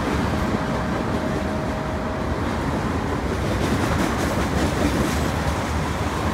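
Two CN freight trains rolling past each other on adjacent tracks: a steady rumble of steel wheels on rail from covered hoppers and centerbeam lumber cars.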